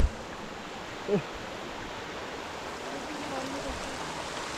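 Steady rush of falling water from a waterfall. A brief falling vocal sound comes about a second in.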